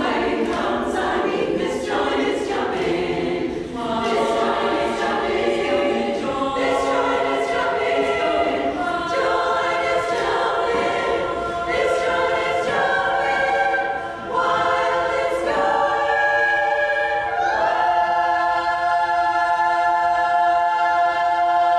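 Women's chorus singing, a brisk rhythmic passage that moves into held chords and ends on one long sustained final chord over the last few seconds.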